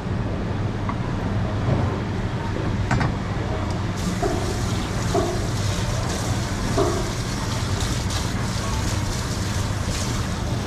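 Steady background din with a low hum underneath, with a few faint, short distant voices in the middle.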